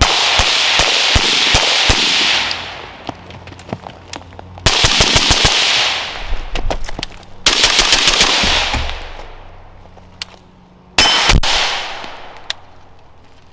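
Suppressed AR-pattern rifle fired in three fast strings of shots (bill drills), each trailing off in echo, then a single shot near the end that hits a steel target.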